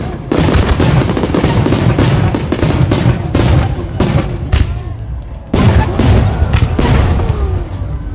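A dense fireworks barrage, with many shells bursting in quick, irregular succession over a continuous rumble and crackle. Music plays along with it.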